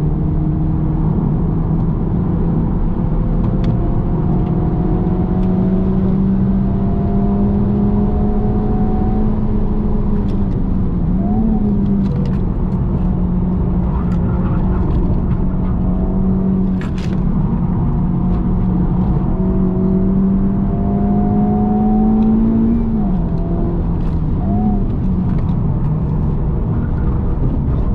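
Honda Civic Type R's turbocharged 2.0-litre four-cylinder engine pulling hard on track, heard inside the cabin over tyre and road noise. Its pitch climbs slowly, then dips and blips briefly as the gears change, about ten seconds in and again near the end.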